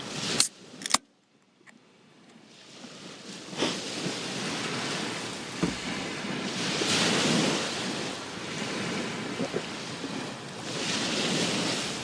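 Sea waves washing onto the shore, swelling and falling back twice, with wind over the microphone. Near the start there are two sharp clicks and a moment of near silence before the surf sound fades in.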